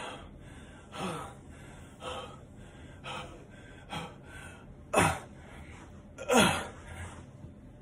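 A man breathing heavily and out of breath, with one loud gasping breath about every second; the last two are the loudest.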